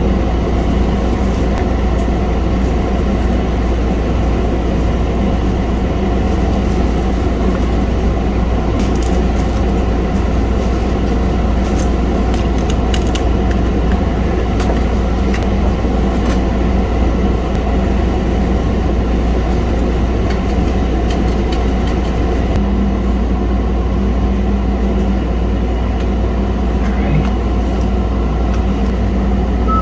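A steady, loud low mechanical rumble with a faint hum, unchanging throughout.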